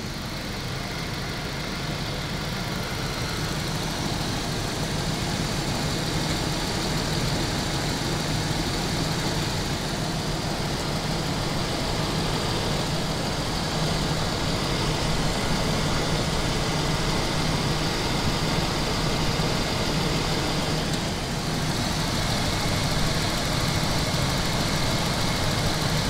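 Daimler Double Six V12 engine running steadily, picked up close-in by a small hand-held microphone down by the oil filter, with the faint gushing of oil through the filter. The mechanic puts this gushing down to a non-original oil filter and the wrong oil, not to an engine fault.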